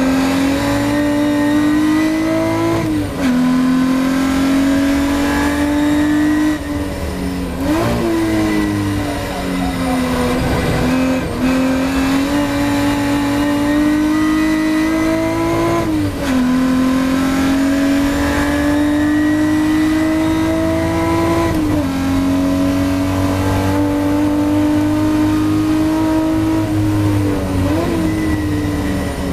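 Ford Capri V6 race car engine at racing speed, heard onboard. The engine note climbs slowly through the revs and its pitch drops or jumps suddenly at about five gear changes.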